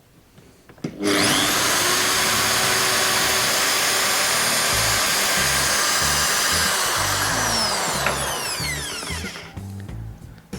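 Electric drill running at a steady high speed, boring a hole into the resin-filled body of a squid jig to seat a replacement barb. It starts about a second in, and near the end it spins down with a falling whine. Background music with a steady low beat comes in about halfway through.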